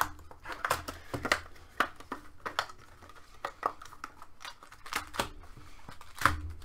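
Cardboard hockey card hobby box being unwrapped and opened by hand: irregular crackles, rustles and taps of wrapper and cardboard, with a louder knock about six seconds in.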